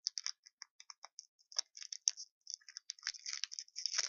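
Airheads candy-bar wrapper being peeled open by hand: a run of irregular crinkling and crackling, busiest near the end.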